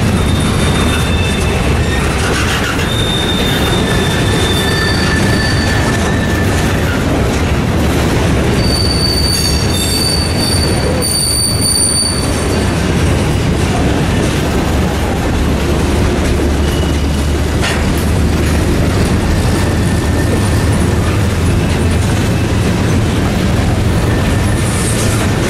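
Mixed freight train of tank cars, boxcars and covered hopper cars rolling past: a steady rumble of steel wheels on rail, with high-pitched wheel squeals coming and going, the loudest near the middle.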